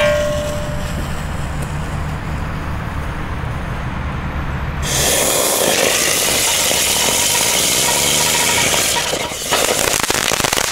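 An Explode Storm, a small spinning ground firework, hissing loudly as it sprays silver sparks, starting about five seconds in. Crackling pops come near the end.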